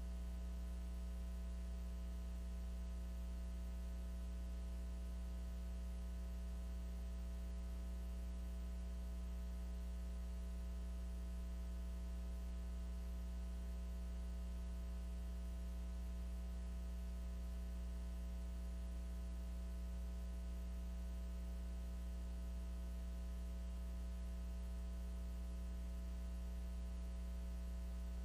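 Steady electrical mains hum: a low drone with a ladder of fainter overtones above it, unchanging throughout.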